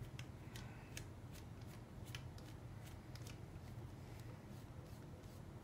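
Small screwdriver backing screws out of a VFC V2 gas blowback airsoft magazine: faint, irregular clicks and ticks of the driver tip and turning screws, over a low steady hum.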